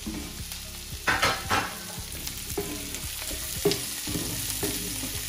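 Chopped capsicum and onions sizzling in a cast iron frying pan as a wooden spatula stirs them. The spatula scrapes and knocks against the pan about seven times, loudest a little over a second in.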